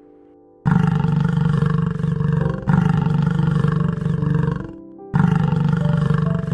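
A large animal roaring: three long, rough, low calls of about two seconds each, one after another, over soft background music.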